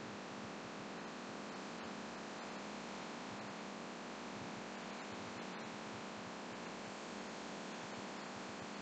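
Laminar flow hood blower running, a steady, even rush of air being forced through its filter.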